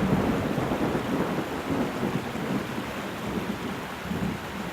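Thunderstorm sound effect: thunder rumbling and rolling over steady, heavy rain.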